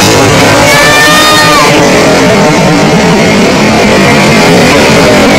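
Loud background rock music with electric guitar.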